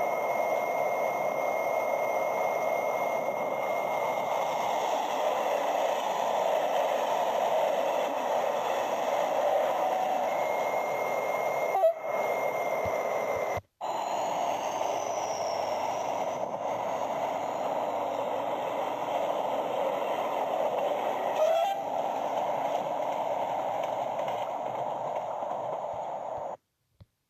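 SNCF BB 67000 diesel locomotive hauling a TER train past: engine and wheels on the rails as a steady noise, broken by two short dropouts about twelve and fourteen seconds in, and cutting off shortly before the end.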